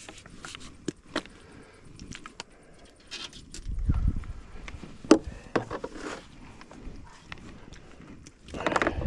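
Footsteps and scattered knocks and clicks of gear being carried and handled, with one sharper knock about halfway through and a low rumble just before it.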